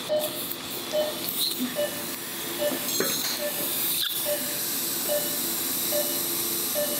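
Operating-room patient monitor beeping a short, identical tone about every 0.8 seconds, the pulse beat of the anaesthetised patient, over a steady hiss. A couple of faint instrument clicks come about halfway through.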